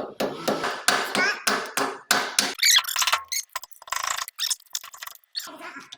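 A hammer striking metal in a quick, steady rhythm of about four blows a second, stopping about two and a half seconds in. A brief high squeak and a few light clinks follow.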